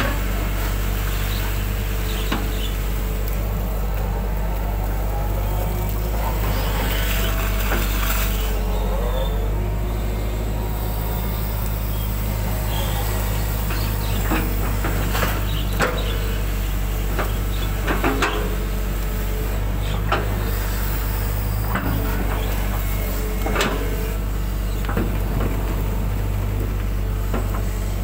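Hitachi 120 excavator's diesel engine running steadily while the arm and bucket dig mud out of a ditch. The hydraulics whine, rising and falling as the arm moves, and there are scattered knocks and clunks from the bucket and linkage.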